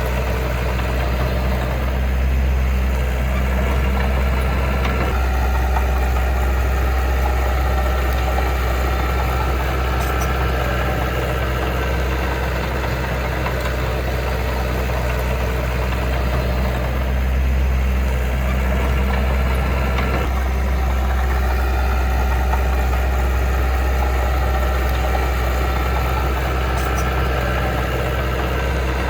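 Diesel engine of a heavy earthmoving machine running steadily with a deep hum. Its note shifts slightly about five seconds in and again about twenty seconds in.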